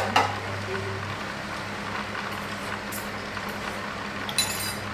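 Lit gas stove burner hissing steadily with a low hum under an aluminium wok. A metal spatula clinks in the wok just after the start and scrapes against it near the end.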